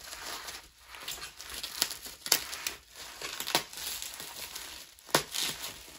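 Bubble wrap crinkling and rustling as a box is unwrapped by hand, with sharp crackles now and then, the loudest about two seconds in and again near the end.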